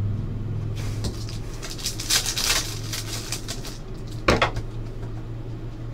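Glossy Panini Select basketball cards being flipped and slid against each other in the hands, a run of quick clicks and rustles followed by one sharp snap about four seconds in, over a steady low hum.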